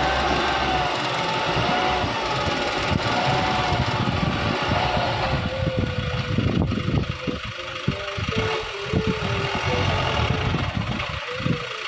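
Small motor running continuously with a rough, rattling hum; its pitch wavers during the first few seconds, then holds steadier with a fast knocking underneath.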